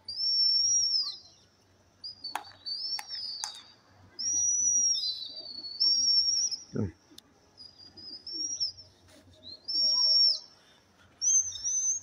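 A series of high, clear whistles, about seven of them, each lasting up to a second or so and gliding up and down in pitch. A few sharp clicks fall between them early on.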